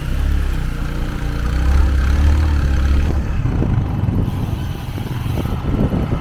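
Motor vehicle engine running, a low rumble heaviest for the first three seconds, with road noise.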